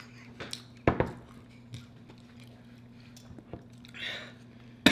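Sparse eating sounds at a table: a sharp click about a second in, with a weaker one right after it, and a few faint ticks later, over a steady low electrical hum. A short breathy sound comes near the end.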